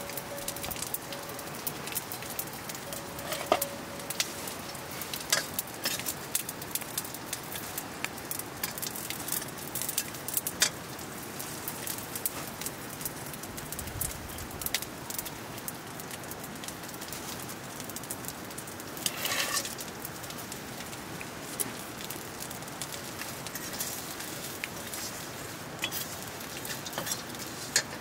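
Open wood fire crackling, with frequent sharp pops and snaps over a steady hiss.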